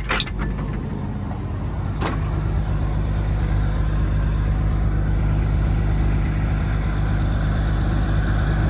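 Combine harvester running steadily under load, a low even drone, with a sharp click near the start and another about two seconds in, as of the cab door.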